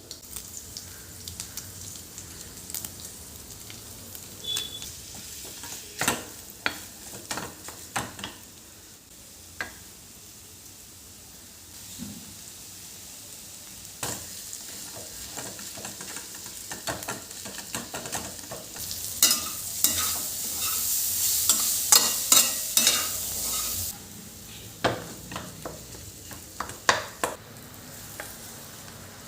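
Food frying in a pan while it is stirred with a spatula: scattered scraping and tapping strokes over a steady sizzle, which swells louder for several seconds past the middle.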